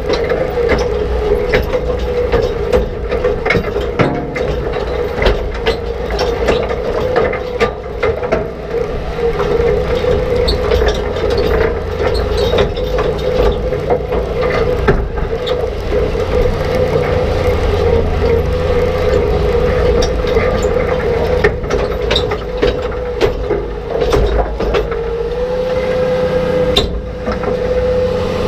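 Reel-type rock picker working a field: a steady mechanical whine over a low tractor rumble, with rocks, dirt and roots clattering against the turning steel tines and hopper in frequent knocks and clicks. The whine rises slightly in pitch near the end.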